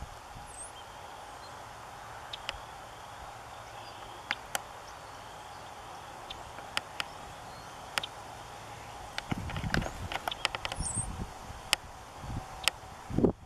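Outdoor ambience with scattered sharp clicks and ticks, two brief high chirps of a small bird, and bursts of low rumbling thumps from about nine to eleven seconds in and again near the end. The crane does not call.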